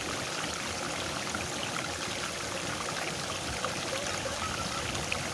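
Steady rushing of water running along a small ditch through rice paddies, with a few faint short chirps.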